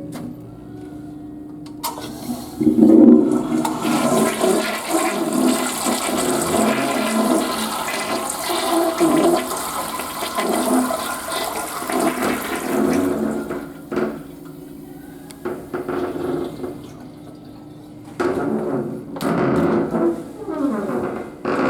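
Toilet flushing: a sudden rush of water starts about two seconds in and runs for about ten seconds. It then drops to quieter running water, and the water sound comes up again near the end as the toilet refills.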